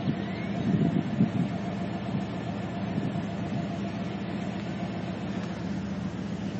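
A steady low engine hum under an even wind-like rush.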